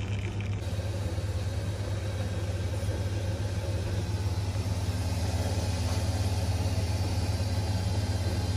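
Costa self-service coffee machine running as it pours a cappuccino: a steady low hum from its pump and frother, with the pour changing from coffee to frothed milk about half a second in.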